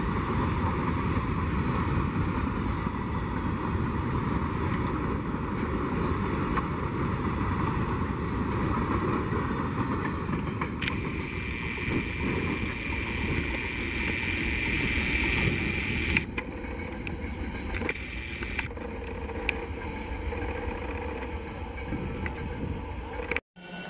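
Freight train of open wagons passing at speed close by: a steady rumble of wheels on rail, with a high-pitched squeal lasting several seconds midway. The sound then drops away as the brake van recedes.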